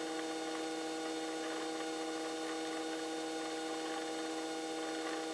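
Steady electrical hum made of several fixed tones, as heard on a helicopter's headset intercom audio line while no one is keying the mic.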